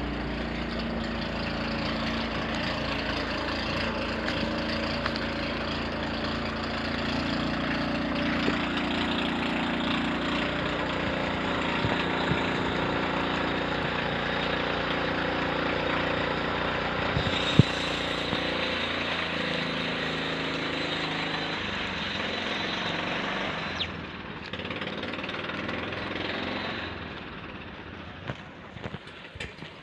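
A motor engine running steadily, dropping in level about 24 seconds in and fading away near the end, with a single sharp click partway through.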